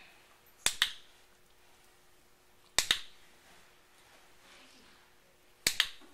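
Dog-training box clicker pressed three times: under a second in, near three seconds and near the end. Each press gives a sharp double click, marking the puppy for going onto its mat.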